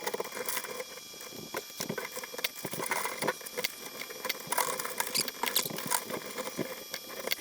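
Many quick small clicks, scratches and rattles of parts being handled inside a computer case while case fans are unscrewed and taken out.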